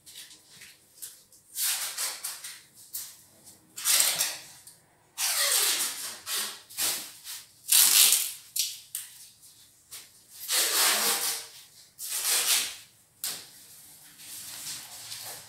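Broom sweeping a parquet floor: a series of loud swishing strokes, each lasting about a second, with short pauses between them.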